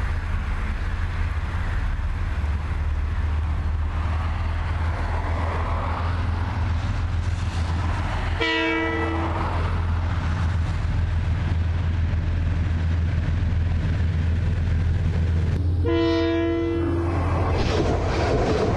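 KiwiRail diesel freight locomotive sounding its horn twice, two blasts of about a second each some seven seconds apart, the second a little longer, over a steady low rumble of the moving train. Near the end it gives way to the rushing rattle of coal wagons rolling overhead.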